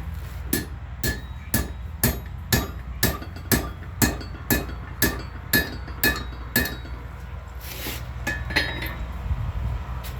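A hammer striking metal on an anvil, a steady run of about a dozen ringing blows roughly two a second. The run stops about two-thirds of the way through, followed by a brief scrape and a couple of lighter taps, over a steady low hum.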